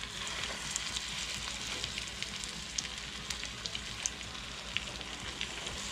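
Flour-dredged chicken thighs sizzling in hot melted butter in a metal pot as more thighs are laid in: a steady hiss with scattered small pops and crackles, the start of browning.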